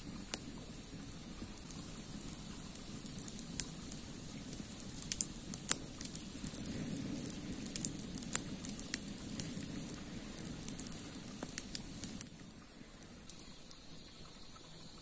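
Wood campfire of sticks and twigs burning and crackling, with sharp pops and snaps scattered over a steady hiss. About twelve seconds in it drops to a quieter hiss as the fire burns down to a small flame over glowing embers.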